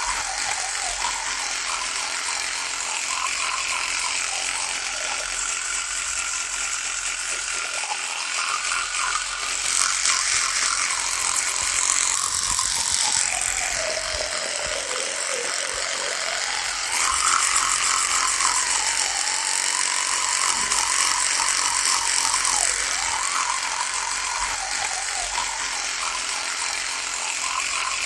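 Electric toothbrush running continuously with a steady buzz. Its pitch wavers, sagging lower for a few seconds around the middle before rising again.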